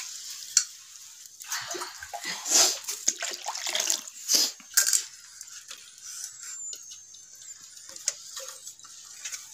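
Water splashing in a steel wok as whole eggs are put into it by hand, with a few sharp clicks; the splashes cluster in the first half, then it goes quieter.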